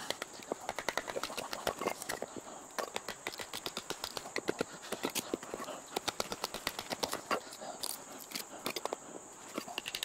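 Firewood being split with a knife: an irregular string of short wooden knocks and taps as the blade is struck through the wood on a chopping block. A steady high insect buzz runs underneath.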